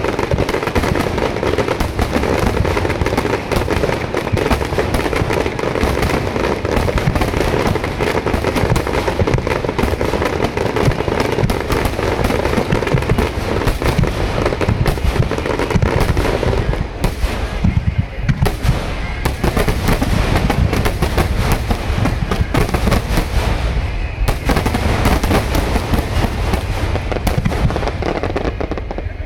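Fireworks finale barrage: a loud, dense, unbroken run of bangs and crackling shells, with two brief lulls about two-thirds of the way through.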